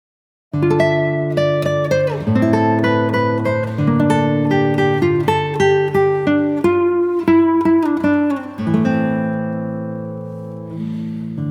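Acoustic guitar music, fingerpicked notes over sustained chords, starting about half a second in.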